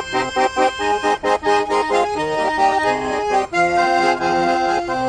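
A garmon (Russian button accordion) plays an instrumental passage between sung verses. It starts with quick, detached chords and moves to longer held notes about three and a half seconds in.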